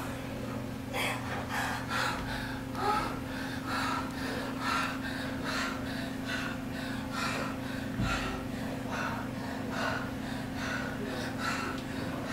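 Actors breathing heavily and gasping in a steady rhythm, about two breaths a second, over a steady low hum.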